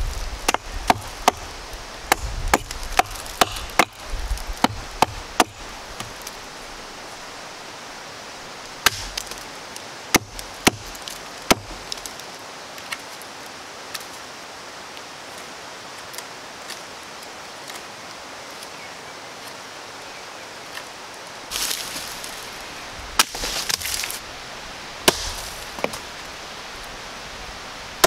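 Hatchet chopping into a fallen, moss-covered log: sharp wooden chops in quick succession, two or three a second, for the first few seconds and a few more later on. Near the end come scuffling and a couple of further knocks.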